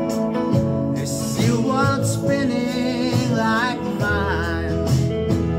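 Music: a man singing long, wavering notes with no clear words over acoustic guitar accompaniment.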